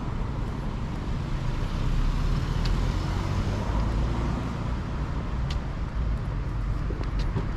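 City street traffic noise: a steady low rumble of passing road vehicles, swelling a little for a couple of seconds about two seconds in, with a few faint clicks.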